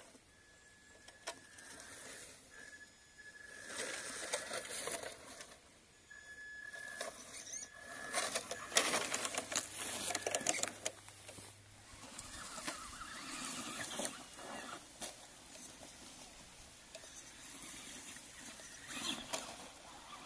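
Traxxas Rustler XL-5 RC truck driving off-road: its brushed electric motor whining as it runs, with the tyres and chassis rustling and crackling through twigs, foliage and dirt in uneven bursts, loudest about halfway through.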